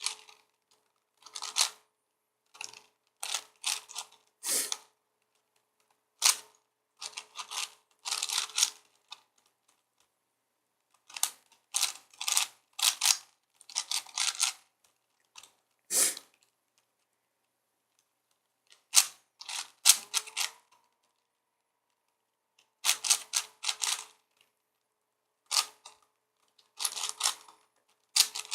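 A 4x4x4 Rubik's cube being turned during a timed solve: the plastic layers clack in quick bursts of turns, with silent pauses of up to a couple of seconds between bursts.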